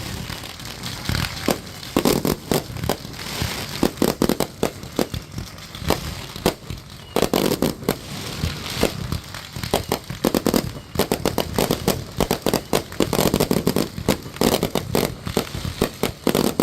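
Fireworks going off in rapid series: dense volleys of sharp cracks and bangs, with crackling in between.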